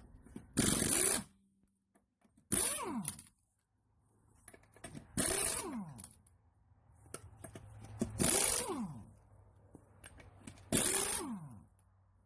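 Impact wrench run in five short bursts, about one every two and a half seconds, spinning lug nuts off a van wheel. The motor's whine falls away after each burst.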